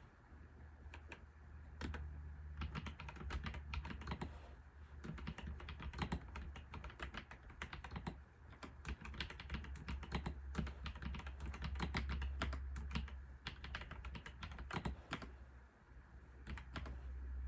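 Typing on a computer keyboard in bursts of rapid keystrokes with short pauses between them, over a steady low hum.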